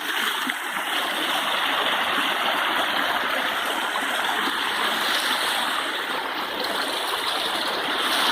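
Steady rushing of water from a waterfall and its stream.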